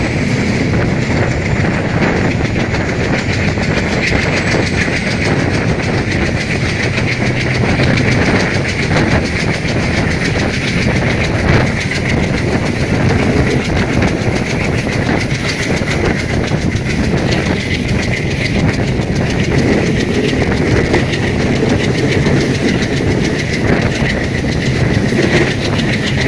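Passenger train running steadily past: continuous loud rail noise with rapid repeated clatter from the wheels over the track.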